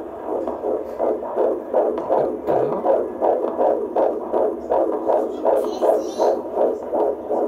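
Fetal heartbeat played through a handheld fetal Doppler's speaker: a fast, even whooshing pulse of about two and a half beats a second, running at 155 to 160 beats a minute, a normal, strong fetal heartbeat.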